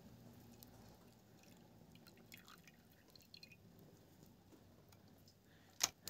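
Faint trickle of liquid poured from a small plastic cup into an iron wok of cassava frying in oil, over a low, even sizzle. A single sharp click near the end.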